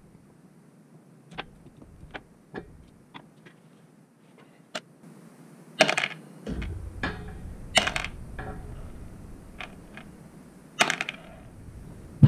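Light clicks of a screwdriver working the small screws out of a Harley-Davidson Sportster CV carburetor. From about six seconds in, several sharp clatters follow as the loose steel screws are dropped one by one into a clear plastic tub.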